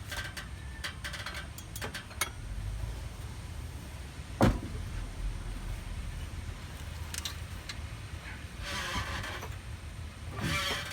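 Acura RSX engine idling steadily as a low background rumble. Several light clicks come over it, and one sharp knock about four and a half seconds in.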